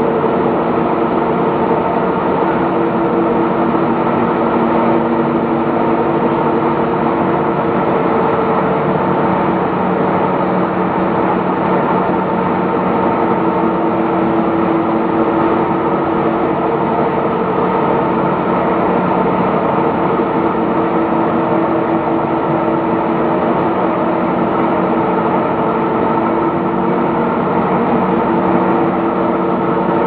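Steady drone of an aluminium rod continuous casting and rolling line's machinery: an even hum with several steady tones and no sudden knocks.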